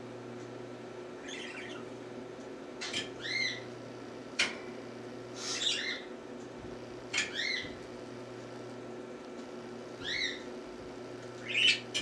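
Songbirds at a seed feeder giving short, arched chirping calls every second or two, some in quick pairs, with a sharper single chip about four seconds in.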